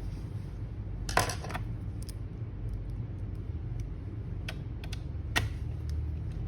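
Small clicks and light taps of laptop parts and tools being handled, a short cluster about a second in and a few single clicks later, over a steady low hum.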